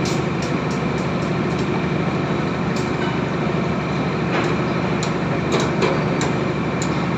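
Construction machinery running steadily with a constant low hum, with scattered sharp knocks at irregular intervals.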